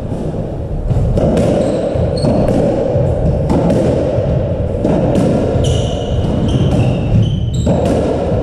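Squash rally: the ball cracks off rackets and walls at irregular intervals, with short squeaks of shoes on the wooden court floor in the second half, over a steady low background rumble of the hall.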